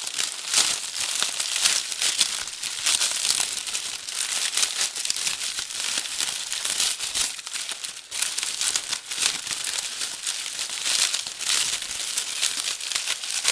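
Packing paper being handled, crumpled and unwrapped: a continuous irregular crinkling and rustling, unbroken throughout.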